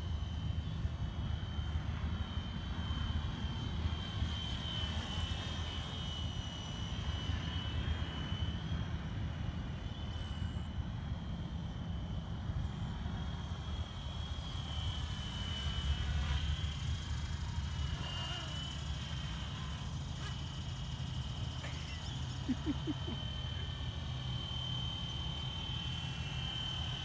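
FlyWing FW450 electric RC helicopter in flight, a steady high-pitched motor and rotor whine that drifts gently up and down in pitch as it moves about, over a low rumble.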